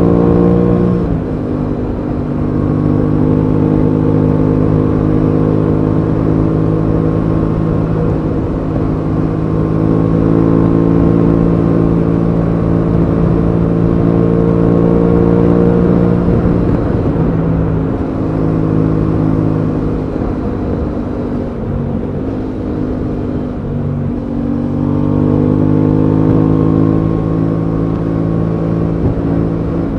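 Aprilia Tuono 660's parallel-twin engine running under way on the road, its note falling about a second in, holding steady, then dipping and climbing again a few times in the second half as the rider works the throttle and gears. Wind noise rushes over it.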